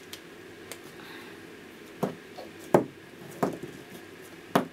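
A handful of sharp clicks and knocks of hard plastic, spread through the second half, as a small plastic mini doll is pulled and twisted in the hands until her head pops off.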